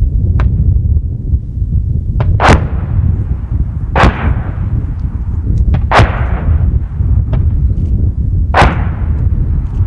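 Live-fire gunfire and explosions across a firing range: a string of about eight sharp bangs with echoing tails, four of them much louder, spaced roughly two seconds apart. A steady low rumble runs underneath.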